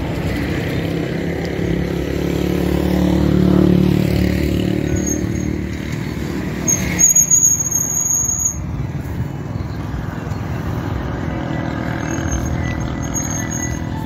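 Engine and road noise of a moving vehicle, swelling to a peak about four seconds in, with a brief high-pitched squeal about seven seconds in.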